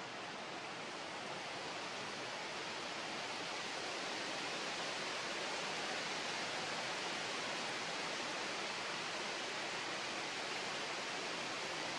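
Steady, even hiss with no distinct sounds in it, growing slightly louder over the first few seconds.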